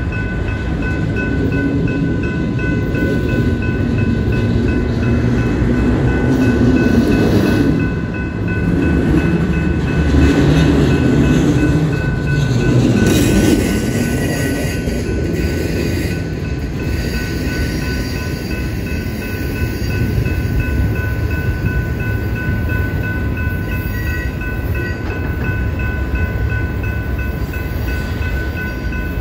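Freight train of enclosed autorack cars rolling past: a steady rumble and rattle of wheels on rail, loudest about six to fourteen seconds in, with a steady high ringing tone above it.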